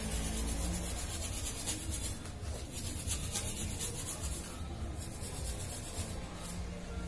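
Steady scratchy rubbing on a printed circuit board in quick, fine strokes, as when the board is scrubbed clean.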